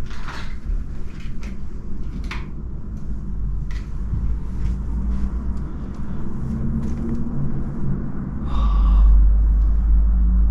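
Footsteps crunching and clicking over debris on a soft, fire-damaged floor, over a steady low rumble. The rumble swells louder for a second or two near the end.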